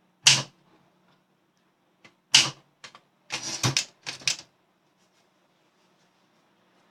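Olympia SM7 manual typewriter being typed on: a few separate, sharp keystrokes, then a quick run of several strikes, stopping about four and a half seconds in.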